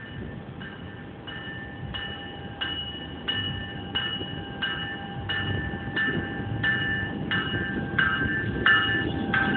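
GO Transit bilevel commuter train approaching cab car first, its warning bell ringing in steady strikes about one and a half times a second. A low rumble of the train grows louder as it draws near.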